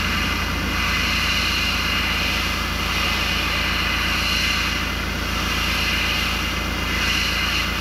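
Gravity-feed airbrush spraying orange paint through a stencil: a light, steady hiss of air and paint. A steady low hum runs beneath it.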